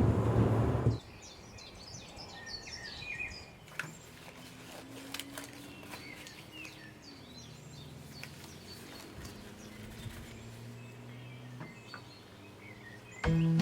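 Birds chirping in the background over a low, steady hum, with a few light clicks. Music plays for about the first second and starts again near the end.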